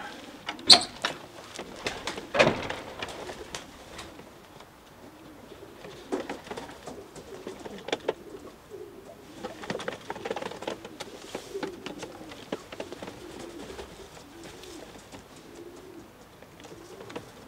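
Racing pigeons cooing in a loft, a low warbling coo that goes on throughout. A sharp click comes near the start, a louder short rustling knock follows about two and a half seconds in, and smaller handling clicks are scattered after it.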